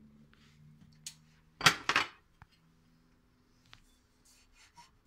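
Kitchenware clattering: a metal spoon knocking against a stainless steel pot and dishes, with a loud cluster of clinks about two seconds in and a few lighter clicks and rustles after.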